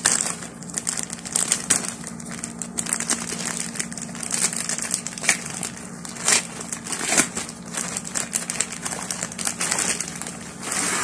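Plastic courier mailer pouch crinkling and rustling in irregular bursts as hands pull it open and draw a fabric bag out of it.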